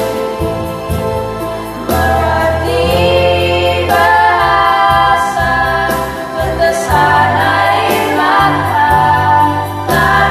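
Children singing together in a Christian praise song, with instrumental accompaniment: long held notes over a sustained bass line.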